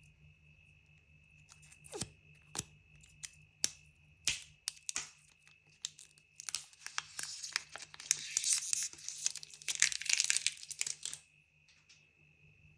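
Packaging handled with a few sharp clicks and taps, then torn and crinkled for about four seconds before stopping abruptly, as the box of an Apple Pencil (2nd generation) is opened.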